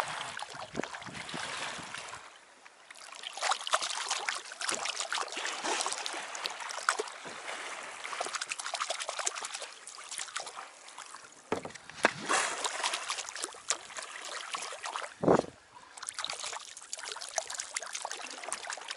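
Water trickling and splashing around a kayak's hull and paddle, a constant crackle of small drips and ripples with louder splashes now and then, and one short louder burst about three-quarters of the way through.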